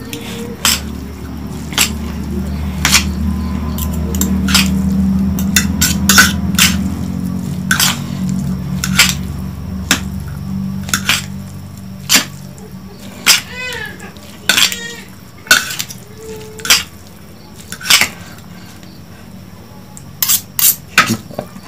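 Metal spoon and fork clinking and scraping against a ceramic plate while tossing instant noodles, in irregular sharp clinks about once a second. A low steady hum sits under the first half.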